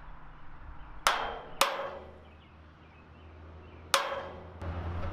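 Three sharp metal-on-metal strikes, each with a short ring: a steel punch knocked into a bolt hole in a rusty steel cross-brace bracket to free the brace. The first two come about a second in, half a second apart, and the third near the end.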